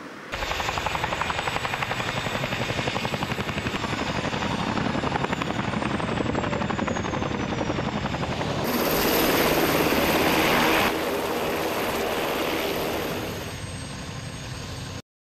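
Boeing CH-47 Chinook tandem-rotor helicopter running, its rotor blades beating in a fast, even pulse. It grows louder about nine seconds in, then fades and cuts off abruptly near the end.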